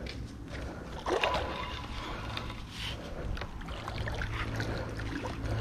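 A hooked fish splashing and thrashing at the pond surface while it is reeled in, with a burst of splashing just after a second in. A steady low hum joins about four seconds in.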